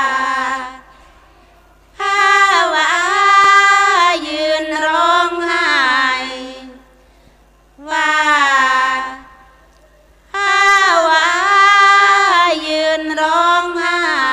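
A woman singing sarabhanya, a Thai Buddhist devotional chant, unaccompanied through a microphone: long, ornamented phrases with gliding held notes, broken by short pauses about a second long.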